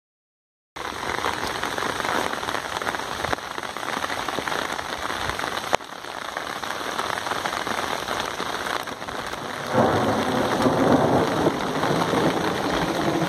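Heavy rain falling on pavement and grass, a steady dense hiss that grows louder and fuller about ten seconds in.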